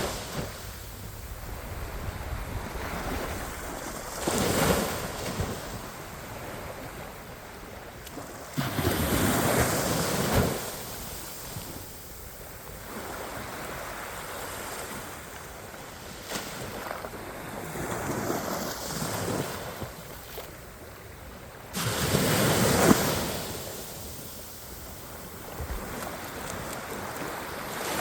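Sea waves breaking on a beach, swelling and crashing in surges every several seconds, the loudest crash a little before the end, with wind on the microphone.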